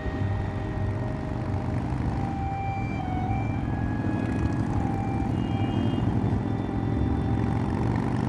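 Steady city traffic noise, a low rumble of car and bus engines and tyres, with thin high tones coming and going above it.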